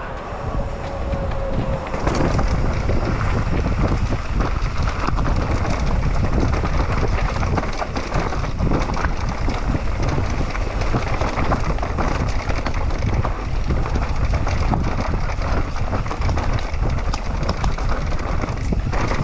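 Mountain bike riding down a dirt trail: tyres rolling and the bike rattling over rough ground, with wind buffeting the microphone. It grows louder about two seconds in and keeps going.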